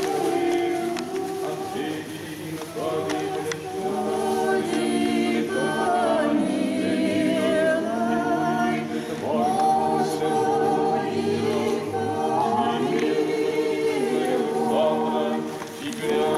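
A small group of worshippers singing an Orthodox church hymn unaccompanied, several voices holding long chanted notes in phrases, with a short break just before the end.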